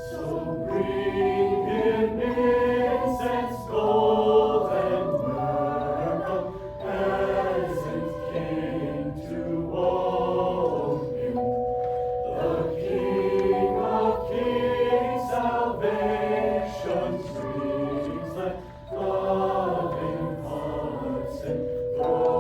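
High school choir singing a carol in harmony, with phrases of moving notes and held chords.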